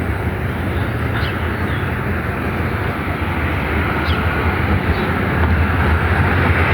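Steady outdoor rumble of background noise, strongest in the low range, with a few faint short high chirps.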